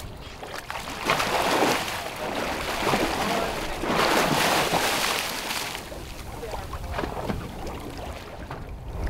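Large Pacific halibut thrashing at the surface beside the boat, splashing the water in two loud spells, about a second in and again from about four to six seconds in.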